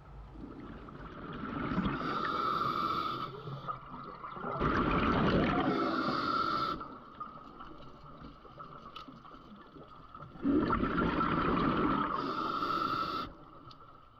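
Scuba diver breathing underwater through a regulator: three long breaths, each a couple of seconds of bubbling and hissing.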